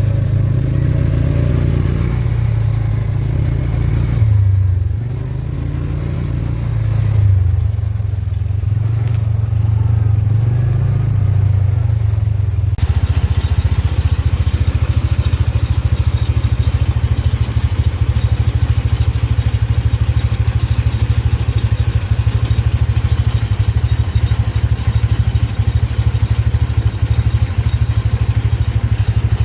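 Kubota M7040 diesel tractor running under load with a Case 8430 baler working behind it: a steady low engine drone with mechanical clatter. About 13 seconds in, the sound changes abruptly to a busier, even, rapid rattle.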